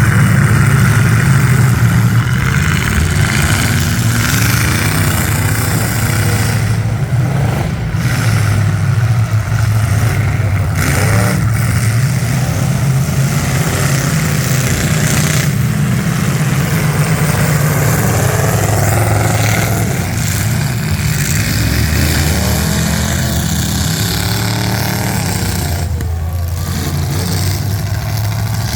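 Several big-car engines in a demolition derby heat running loud without a break, revving up and down.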